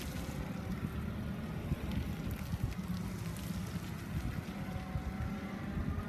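Cat 2C5000 LP-gas forklift engine running as the forklift drives and turns on gravel, a steady low rumble with wind rumbling on the microphone. A faint whine comes in near the end.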